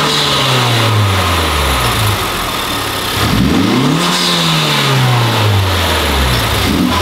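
Honda Civic Type R's turbocharged 2.0-litre four-cylinder being blipped on a free rev. The revs fall away at the start, rise quickly about three seconds in, sink slowly back toward idle, and climb once more at the very end. These are warm-up revs after its first start on a new HKS intercooler, intercooler piping and oil cooler, listening for air leaks in the intake.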